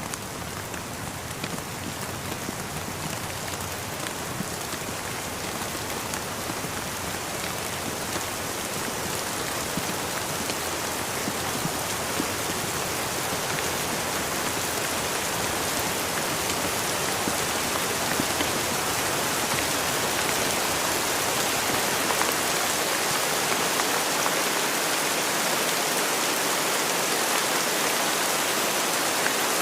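Steady rain falling, a dense even hiss of drops with scattered individual drop ticks, slowly growing louder.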